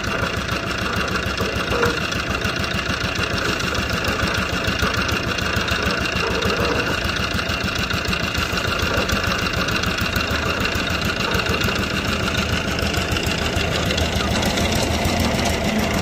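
Engine-driven concrete mixer running steadily while cement, sand and gravel are mixed in its drum.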